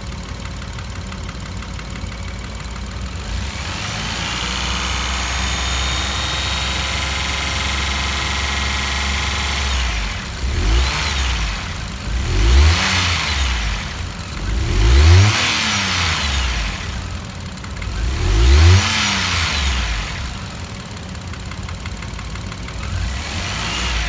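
Daihatsu Hijet Cargo's KF-VE three-cylinder engine running at a raised speed, then revved up and back down about four times before settling to idle. The engine has a freshly replaced No.1 piston after a seizure and still gives a light knock at a certain engine speed.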